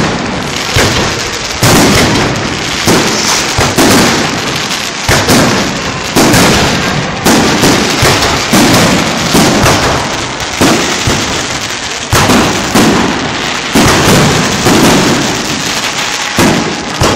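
Aerial fireworks shells bursting in a continuous barrage, with a loud bang about once a second.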